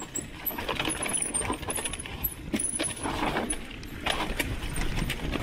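Mountain bike descending a rough dirt trail, rattling and clicking irregularly over the bumps, with a low rumble of tyres on the ground.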